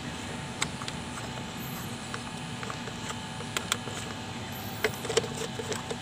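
Scattered small clicks and ticks from a motorcycle clutch cable end and lever adjuster being worked loose by hand at the handlebar, a few in quick succession about five seconds in, over a steady low background hum.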